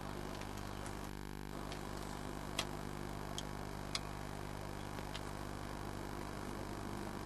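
A few sharp clicks from an orange plastic toy pistol being fired dry as it is aimed, the loudest about two and a half seconds in and again at four seconds, over a steady hiss and hum.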